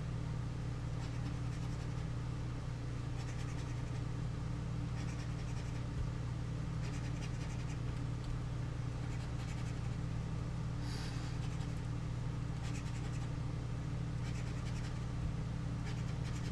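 Scratch-off lottery ticket being scratched in short bursts of scraping every couple of seconds. A steady low electrical hum runs underneath and is the loudest sound.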